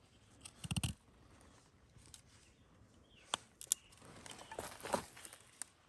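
Axe blade, held by the head, shaving and notching a thin green stick: short quiet cutting scrapes and clicks about a second in and again around three and a half seconds, then a longer scraping stretch near the end.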